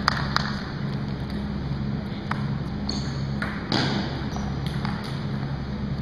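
Table tennis ball clicking off bat and table twice right at the start as a rally ends, then a few scattered light ball taps over a steady low hum.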